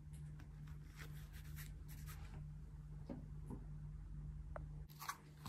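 Faint scratchy rustling of a ribbon being smoothed and pressed around rolled disposable diapers, over a steady low hum; the rustling dies away after about three seconds.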